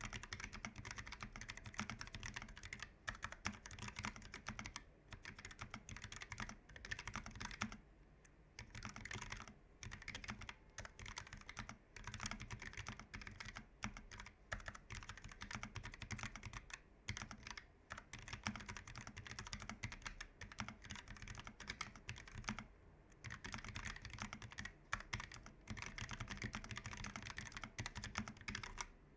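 Continuous fast typing on a Keychron K1 v4 low-profile mechanical keyboard with linear Gateron low-profile red switches: a dense run of light key clicks. It pauses briefly about eight seconds in and again past the twenty-second mark.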